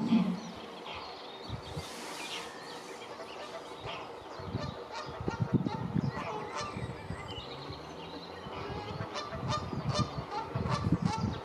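Waterbirds calling on open water: a string of short, sharp high calls, with bursts of lower, rougher calls about five seconds in and again near the end.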